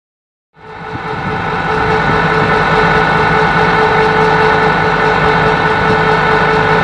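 An engine running steadily, cutting in abruptly out of silence about half a second in and holding an even, loud drone.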